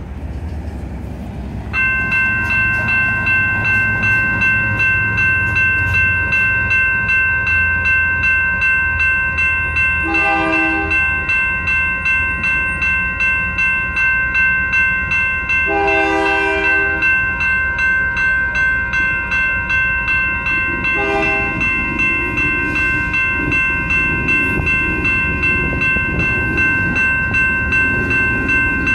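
Grade-crossing electronic bells start up about two seconds in and ring on in an even, rapid dinging. Over them a freight locomotive's horn sounds three blasts, the middle one longest, with a fourth starting at the very end.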